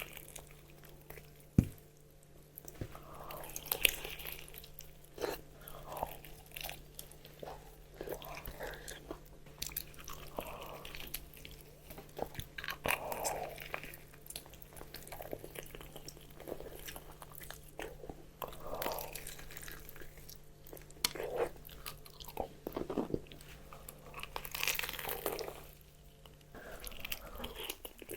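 Close-miked eating of crispy fried chicken: irregular crunchy bites into the fried coating and chewing, with one sharp, loud crunch about a second and a half in.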